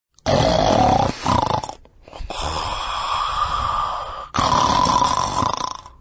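Loud snoring: long breaths in and out one after another, starting abruptly out of dead silence.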